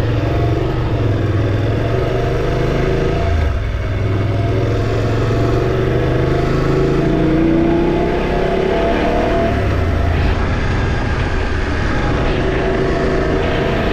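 Motorcycle engine running while riding, its note shifting with the throttle and rising about halfway through, over a steady rush of wind and road noise.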